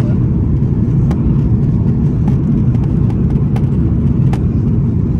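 Strong crosswind buffeting the microphone: a loud, steady low rumble with no clear engine tone.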